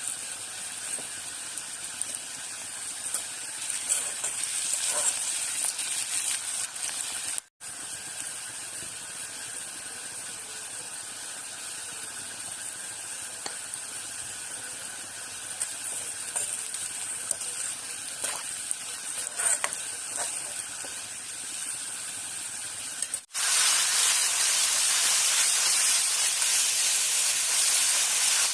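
Food frying in hot oil in a pan, a steady sizzle with small scraping clicks of stirring. The sizzle gets louder and more even in the last few seconds.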